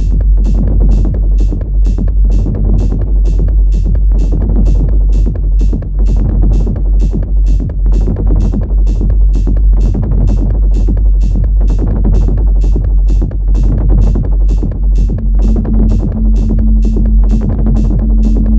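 Live techno played on hardware synths and an analog drum machine: a steady deep kick and bass line under hi-hat ticks about twice a second, with a synth part over them. Near the end a held synth note from the Yamaha Reface CS comes in.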